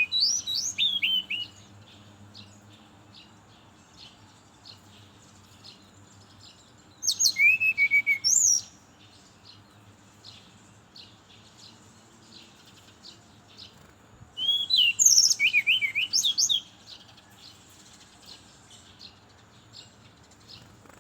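Brown-chested jungle flycatcher singing three short bursts of quick, high, sliding whistled notes, about seven seconds apart, with faint soft chirps in the pauses between them.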